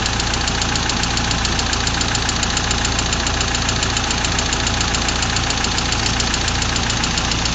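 Freshly rebuilt Mazda 323F 1800 GT engine idling steadily with a fast, even ticking clatter over it, which the owner takes to be the hydraulic valve lifters.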